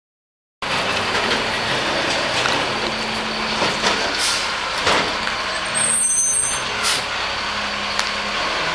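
City garbage truck running, its engine humming steadily, with several short knocks and a short high hiss about six seconds in.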